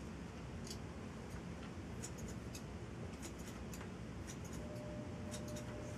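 Blending (thinning) shears snipping through hair: faint, short, irregular snips, several coming in quick clusters, over a low steady room hum.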